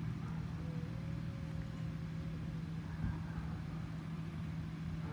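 A steady low motor hum, with a single faint knock about three seconds in.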